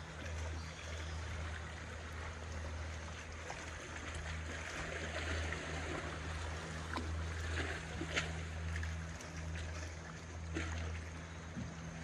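Calm seawater lapping and trickling at the surface around swimmers, with a few small splashes and drips. A steady low hum runs underneath.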